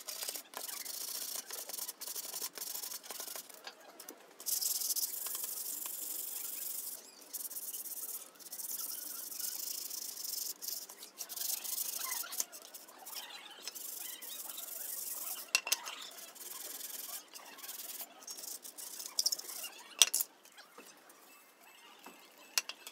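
Sandpaper rubbing on wood, hand-sanding in long back-and-forth strokes with short pauses between them. Two sharp clicks stand out near the end.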